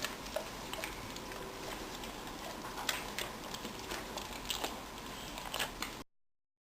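Quiet room with scattered faint clicks and ticks, then a sudden cut to dead silence about six seconds in.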